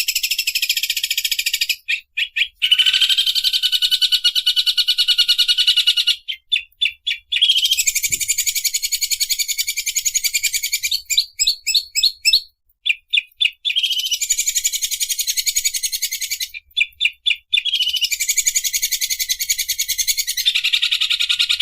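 A songbird sings long, very fast rattling trills that sound like a sewing machine, each lasting a few seconds. Between the trills come short stuttering runs of separate notes.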